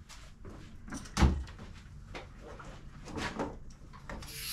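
Workshop handling noises as tools and an air hose are picked up: scattered clicks and knocks, one louder thump a little over a second in, and a short hiss near the end.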